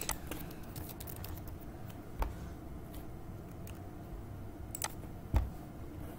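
A few scattered clicks of computer keyboard keys and a mouse. The heaviest knock comes about five seconds in.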